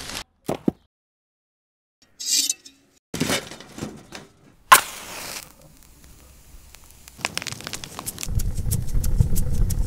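Lump charcoal clattering into a steel uchag stove, then a sharp metal clack as the stove's front door lever is worked. Near the end a fire crackles and builds in the stove.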